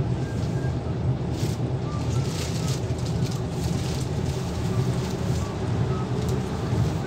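Scania L94UB single-deck bus under way, heard from inside the cabin: a steady low rumble of engine and road noise, with occasional faint rattles and squeaks.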